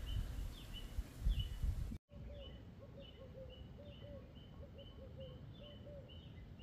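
Several birds calling in the trees: a high chirp with a quick downward flick repeats a few times a second throughout, and after a brief break about two seconds in, a lower bird joins with a quick run of short arched notes for about three seconds. Low rumbling handling noise sits under the first two seconds.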